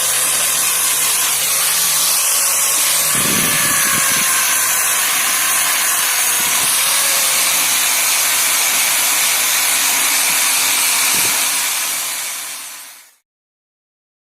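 4-inch angle grinder running with a polishing pad against metal: a steady hissing whine that fades out near the end.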